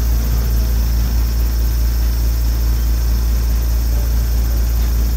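Diesel engine of a small narrow-gauge train running steadily at low revs, a deep even hum with no change in speed, as the train stands or creeps along the track.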